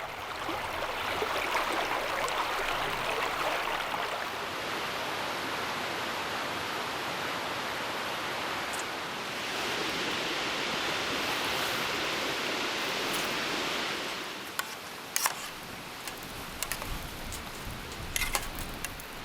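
Strong wind gusting, a rushing noise that swells and eases twice. As it drops near the end, a few sharp clicks and taps.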